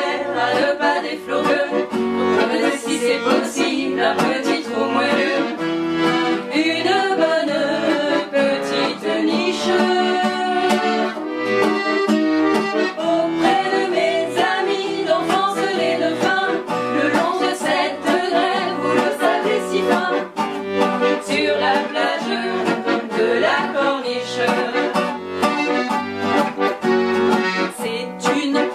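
A chromatic button accordion and a nylon-string classical guitar play a French chanson together, the accordion holding the chords and the guitar keeping a regular bass note about once a second. Women's voices sing with them.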